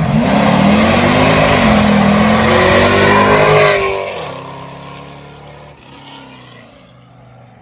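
A 2012 Chevrolet Camaro SS's 6.2-litre V8, breathing through a newly fitted X-pipe exhaust, revving hard as the car accelerates away, its pitch climbing. After about four seconds it fades steadily into the distance.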